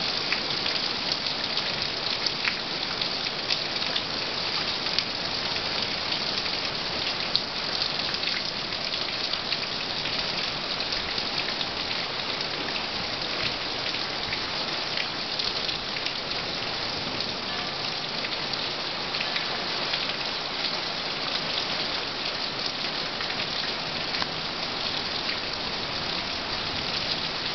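Heavy thunderstorm rain falling steadily, a constant hiss flecked with faint drop ticks.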